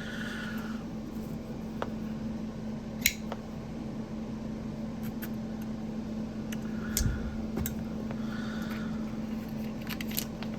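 Tape and wrapping being pulled off a small metal fidget slider: scattered light clicks and soft rustles, with one sharper click about three seconds in, over a steady low hum.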